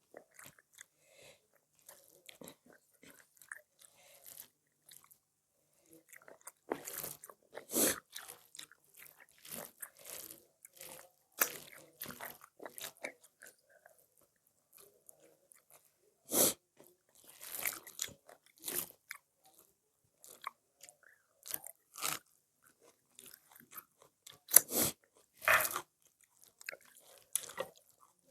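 Close-up eating sounds: chewing with irregular crisp crunches and bites, a few louder crunches standing out.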